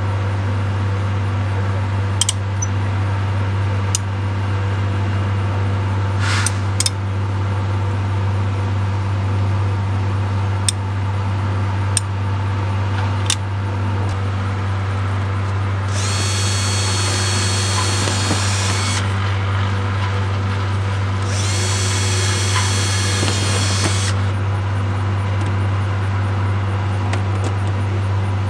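Power drill running twice for about three seconds each, drilling into aluminum flashing on metal siding. A steady low drone runs underneath, and sharp clicks come every second or two in the first half.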